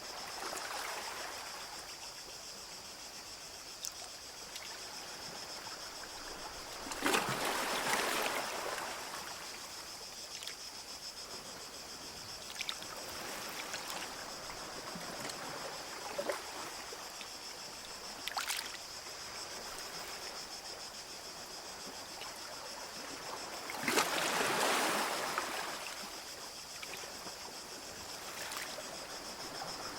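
Small sea waves lapping and washing onto a beach, with two larger waves breaking and washing in, one about seven seconds in and one about twenty-four seconds in, over a steady high hiss.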